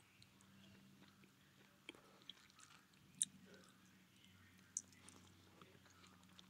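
Near silence: room tone with a faint steady low hum and a few soft, sharp clicks, the clearest about three seconds in.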